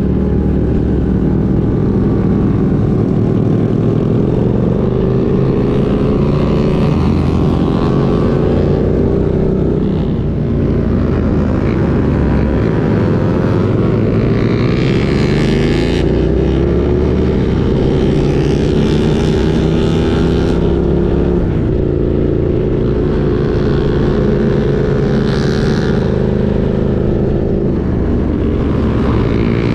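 Suzuki SV650's 645 cc 90-degree V-twin engine running under way, its note falling and rising several times as the rider backs off for bends and accelerates again. Wind rush on the microphone swells at times.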